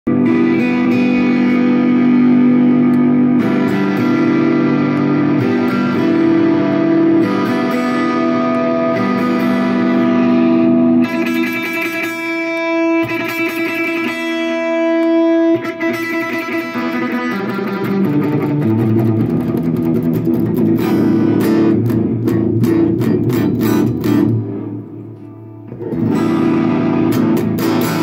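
2003 PRS Custom 24 electric guitar playing held chords, then faster strummed chords from about two-thirds of the way in, with a brief quieter gap near the end. The treble comes and goes at times: a demonstration of a tone knob that seems to engage only sporadically.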